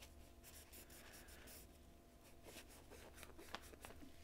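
Faint rubbing of a microfiber cloth wiping a titanium knife handle, with a few small scattered scratchy ticks.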